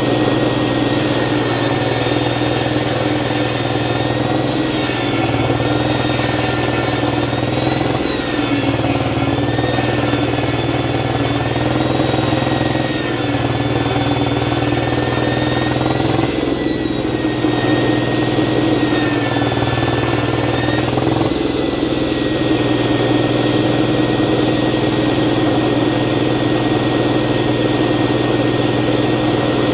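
A 16-inch circular saw machine running with a steady whine. Its pitch wavers and dips several times while wood is cut, with a hissing cutting noise over roughly the first twenty seconds. After that it runs on freely with a steadier hum.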